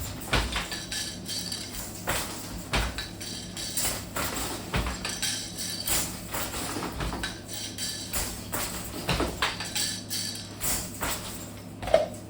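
A loom in use for plain weave, with irregular wooden clicks, knocks and rattles from the shafts, heddles and beater.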